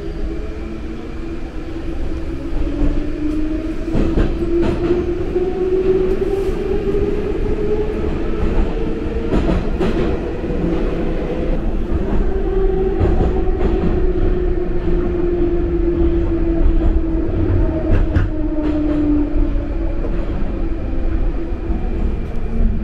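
Metro train heard from inside the carriage, running through a tunnel: a steady low rumble with a motor whine that rises in pitch as the train speeds up over the first ten seconds, then falls from about twelve seconds in as it slows for the next station. A few sharp clacks of the wheels over rail joints cut through.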